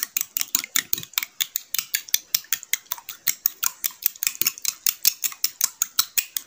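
Metal spoon beating raw egg in a glass bowl, clinking quickly and evenly against the glass at about six or seven strokes a second.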